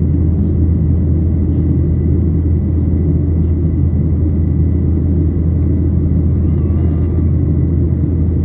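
Airliner cabin noise in flight: a loud, steady, deep rumble of engines and airflow heard from inside the cabin, with a faint steady high whine above it.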